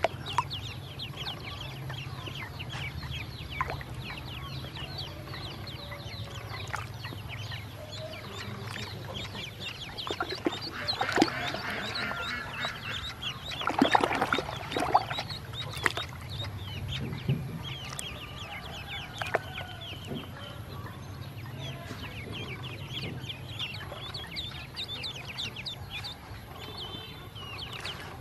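Ducklings peeping: many short, high-pitched peeps in quick succession throughout, louder and busier around the middle. A low, steady hum runs underneath.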